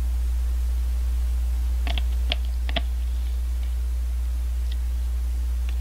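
Steady low electrical hum, with a handful of quick clicks of a plastic spoon against a clear plastic bingsu cup about two seconds in and a single click near the end.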